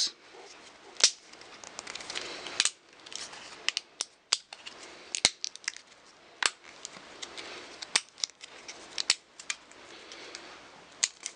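Irregular sharp clicks and ticks of a thin stainless steel dog tag being flexed and worked by fingers to break out its pre-cut knife blade. The clicks are scattered, with the loudest about a second in and again around five and nine seconds.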